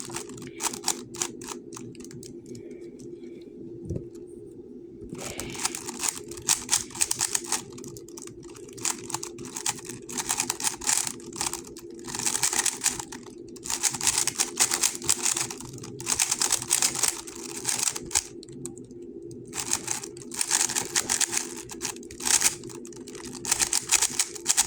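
GAN 11 M Pro 3x3 speedcube being turned fast in a timed solve: rapid clicking and clacking of the layers in bursts of a second or two, with short pauses between them and a quieter stretch in the first few seconds.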